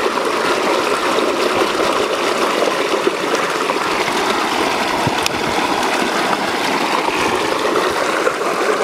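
A steady rushing noise that stays even throughout, with no clear pitch.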